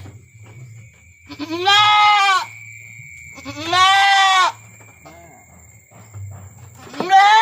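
Goat bleating three times, each call about a second long and rising then falling in pitch, the last starting near the end.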